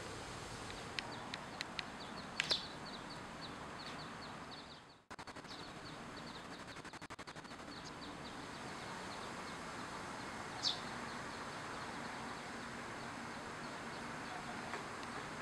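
Outdoor ambience: a steady hiss with a thin, high chirp repeating about four times a second, broken by a few sharper, louder chirps. The sound briefly drops out about five seconds in.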